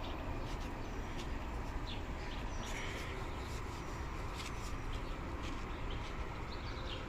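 Steady low background noise with scattered faint, short high chirps and small ticks.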